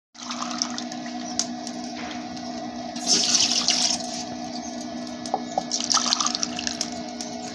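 Water poured by the cupful into a large aluminium cooking pot that already holds water: two pours of about a second each, about three and six seconds in, over a steady low hum.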